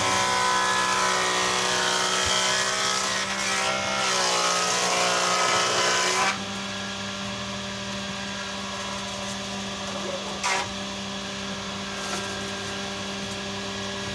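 Multifunction woodworking machine (type 442A) with a 7-inch circular saw blade ripping a heavy wooden door-frame beam: a steady motor hum with cutting noise whose pitch wavers under load for about the first six seconds. The cutting noise then drops away, leaving the machine running steadily, with a brief extra noise near ten seconds in.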